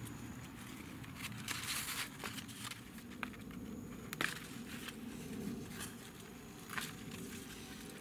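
Fig-tree leaves and stems rustling and crackling as ripe figs are picked off the branches by hand, with a few sharp crackles among the rustle.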